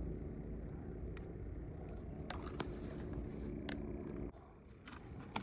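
A motor humming steadily at a low pitch, then cutting off suddenly about four seconds in, with a few scattered clicks.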